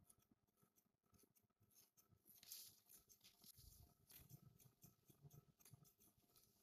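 Hair-cutting scissors snipping through a held section of a mannequin's long hair: a faint, quick series of short sharp snips, the loudest about two and a half seconds in.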